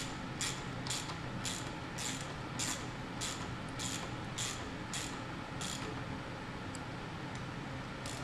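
Ratchet wrench clicking while the water pump housing bolts on an outboard lower unit are tightened, a short run of clicks on each back-stroke about twice a second. The strokes stop a little after halfway through, leaving a few faint ticks.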